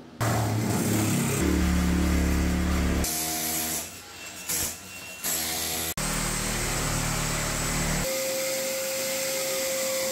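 Power tools and machinery at work on demolition, heard as a run of short clips cut together, so the noise changes abruptly every two or three seconds. It ends on a steady tone.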